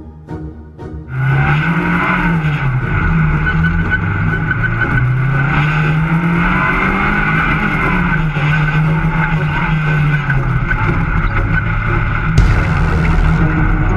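Onboard sound of a Super 1650 off-road racing buggy's 1600 Mitsubishi MIVEC four-cylinder engine running hard, its revs climbing and dropping again several times. Brief music comes first, and the engine cuts in about a second in.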